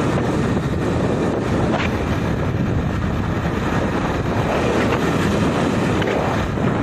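Steady rumble and rushing noise of riding in a moving vehicle, with wind on the microphone.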